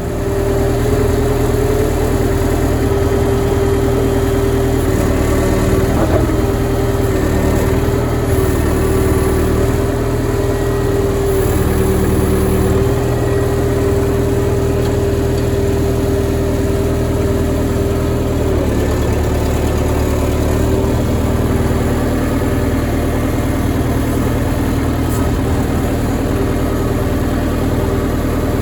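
Engine of a piece of farm machinery running steadily, with a steady whine over it. Its note shifts slightly about two-thirds of the way through.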